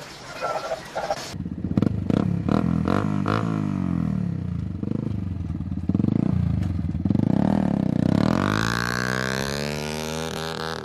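Vintage Kawasaki Ninja motorcycle engine running and being revved, its pitch rising and falling several times. Near the end it climbs to a long high rev and then drops back.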